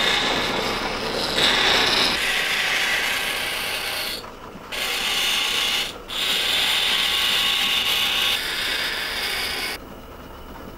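Drill bit spinning on an electric bench motor's spindle, boring into a stag-horn knife handle: a harsh grinding noise, broken twice briefly about four and six seconds in. Near the end the handle comes off the bit and the noise drops to a quieter steady sound.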